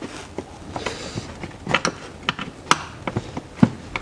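Screwdriver tips clicking and scraping on plastic push-clips in a car's plastic splash shield as their centre pins are pried out: a run of irregular sharp clicks.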